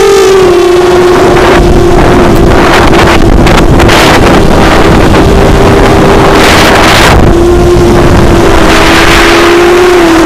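ImmersionRC Vortex FPV quadcopter's brushless motors and propellers whining loudly at a steady pitch in flight, the pitch dipping and rising a little as the throttle changes. Gusts of wind buffet the onboard microphone.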